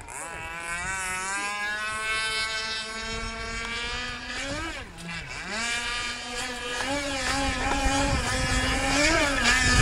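Radio-controlled power boat's motor running at speed. About halfway through its pitch drops sharply as the throttle is eased, then climbs back, and near the end it wavers up and down in quick small rises and falls.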